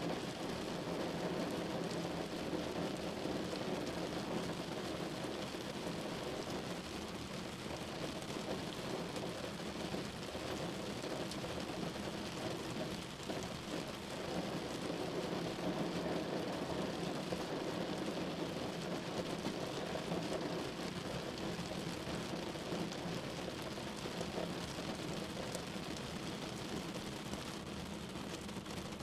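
Steady rain falling on a window pane, swelling and easing a little in strength over the span.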